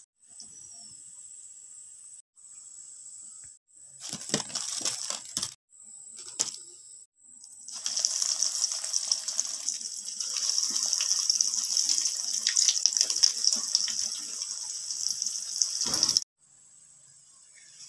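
Hot oil sizzling and crackling around red lentil fritters deep-frying in a pan. It comes in a few short stretches, then a long, loud, dense sizzle as freshly shaped fritters fry, and cuts off suddenly near the end.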